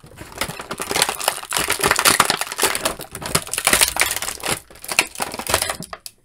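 Thin clear plastic blister tray crinkling and crackling as an action figure is worked free of it, a dense run of small snaps and crackles that dies away near the end.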